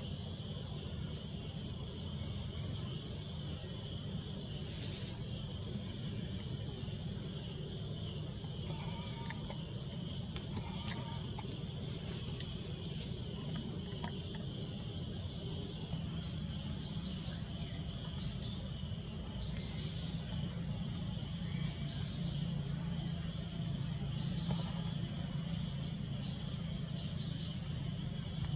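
Steady, high-pitched insect chorus with a fast pulsing trill, over a low steady rumble.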